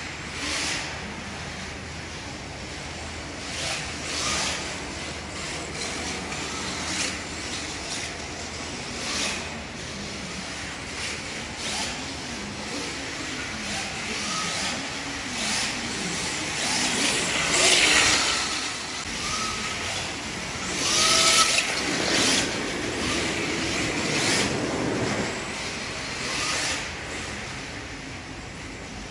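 Electric 1/10-scale RC drift cars sliding around a smooth track: repeated hiss of hard plastic tyres drifting over the floor, with short whines from the motors. The hiss swells loudest about 18 and 21 seconds in.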